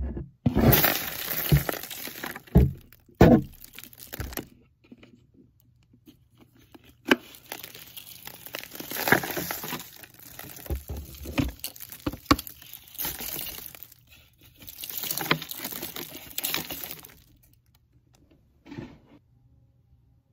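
Vacuum cleaner dust bin being emptied: paper scraps and dust pour and rustle out onto cardboard in several bursts, with sharp knocks of the plastic bin and filter as it is tapped and shaken.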